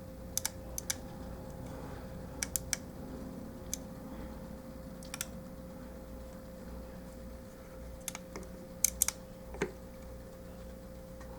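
Scattered sharp plastic clicks and taps from a Transformers action figure being handled and its joints moved, coming in small clusters with the loudest near the end, over a faint steady hum.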